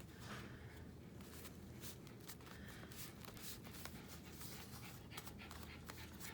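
Faint handling of paper and card: scattered light rustles and small taps as paper pieces are pressed down and handled, over a low steady room hum.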